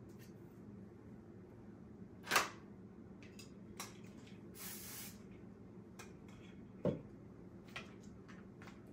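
Small clicks and taps from handling a comb and hair clips while sectioning wig hair, with a low thump about seven seconds in and a brief soft hiss near the middle, over a faint steady hum.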